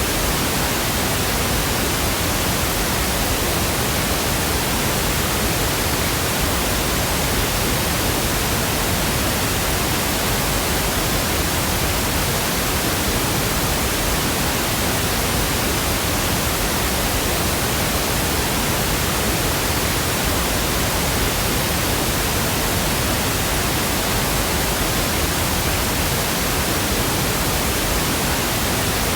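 Steady pink noise: an even, unchanging hiss spread across the whole range, with no other sound.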